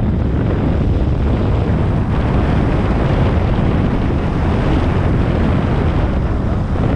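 Wind buffeting the microphone of the instructor's handheld camera during a descent under an open parachute canopy: a steady, loud, low rumble.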